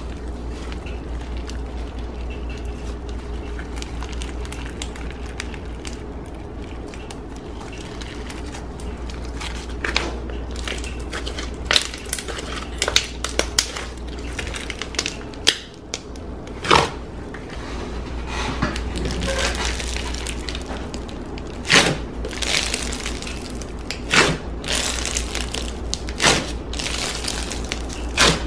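Hands squishing and kneading thick foam-bead slime. It makes sticky crackling and a string of sharp pops as air pockets burst, the pops coming more often and louder in the second half, over a steady low rumble.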